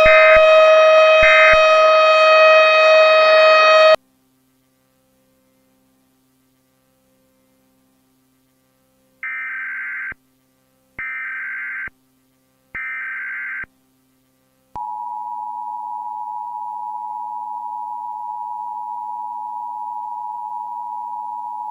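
Emergency Alert System tones. A loud alarm tone with three short beeps over it cuts off about four seconds in. After a few seconds of silence come three short bursts of screeching EAS data header. About a second later the steady two-tone EAS attention signal starts and holds.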